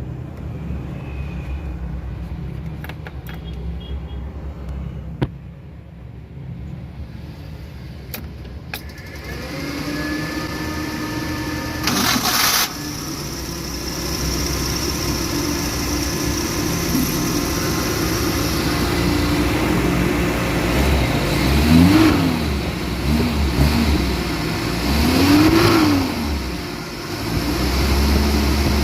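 Suzuki F10A four-cylinder engine running, fitted with new re-gapped spark plugs, then revved up and down several times in the second half. A brief loud noise comes about twelve seconds in.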